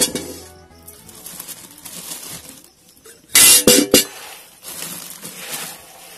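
Lumps of jaggery dropped into a hot metal kadhai, landing with three or four hard knocks about three and a half seconds in, over a faint sizzle of oil heating in the pan.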